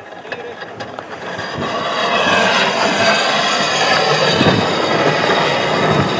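Steel runners of a Class 3 ice yacht rumbling and hissing over clear black ice. The sound swells about two seconds in as the yacht slides close past, then stays loud.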